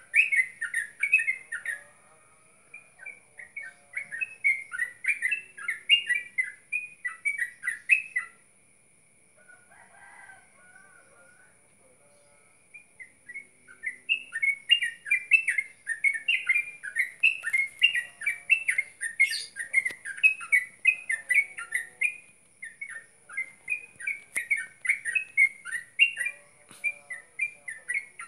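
Runs of rapid high chirps from an unseen animal, about three a second, stopping for several seconds near the middle and then resuming, over a steady high-pitched hiss.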